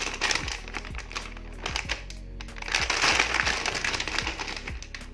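Metallised anti-static bag crinkling as a motherboard is slid out of it, loudest about three seconds in, over background music.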